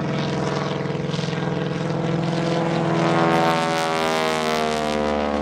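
Stearman biplane's radial engine and propeller flying past close by: the engine drone grows louder, is loudest about three seconds in, then drops in pitch as the plane goes by.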